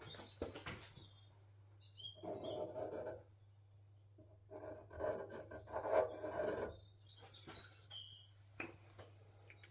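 Felt-tip permanent marker scratching and rubbing as it is drawn around a car's bonnet hinge, in two stretches. A few short bird chirps sound in the background over a steady low hum.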